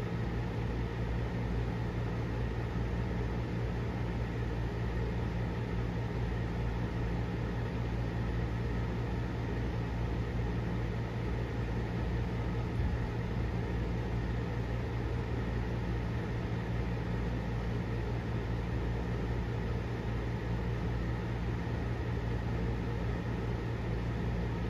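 Steady low mechanical hum with a constant hiss, unchanging throughout, like a household appliance or fan running.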